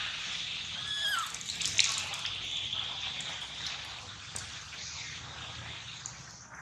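Steady high hiss of outdoor background noise that fades slightly near the end, with a short squeaky call falling in pitch about a second in and a few sharp clicks just after.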